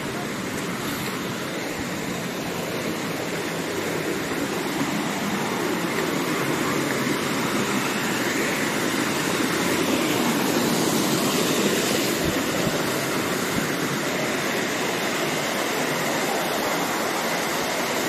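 Waterfall rushing: a steady wash of falling water that grows gradually louder over the first half and then holds.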